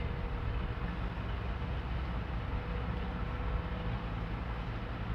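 Steady low background rumble with a faint, even hum.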